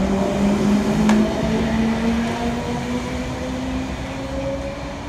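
Intercity double-deck electric train pulling away, its motors whining and rising slowly in pitch as it gathers speed, fading as it goes. A short click about a second in.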